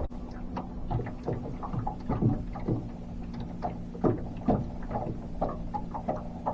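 Small waves slapping irregularly against a boat's hull, over a steady low hum.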